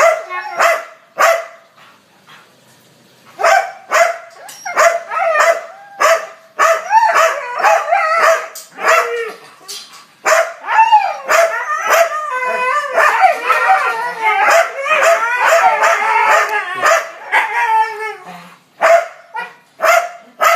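Caged dogs, huskies among them, barking and yipping in short excited calls, with a brief lull about two seconds in and a long run of wavering, voice-like calls past the middle.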